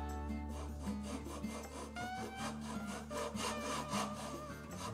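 A steel hand file rasping across the edge of a wooden workpiece clamped in a vise, in repeated back-and-forth strokes.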